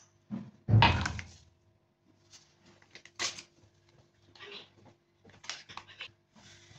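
An empty drinking glass knocks down onto a stone countertop, followed by the crinkling and tearing of a small paper vanilla sugar sachet being opened.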